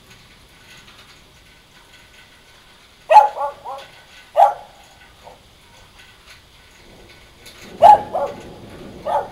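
A dog barking in two short bursts of a few sharp barks, about three seconds in and again near the end, with a low rumble rising beneath the second burst.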